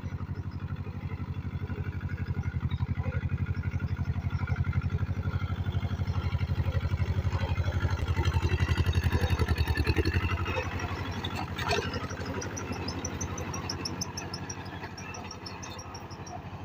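Mahindra Jivo 245 DI compact tractor's two-cylinder diesel engine chugging steadily while it drives a rotavator through soil. It gets louder in the middle and there is one sharp knock about 12 seconds in.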